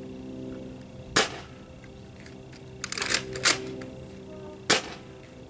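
Nerf Rival Apollo spring-powered blaster being cocked and fired: a sharp snap about a second in, then a quick rattle of clicks followed by another snap a couple of seconds later, and one more snap near the end.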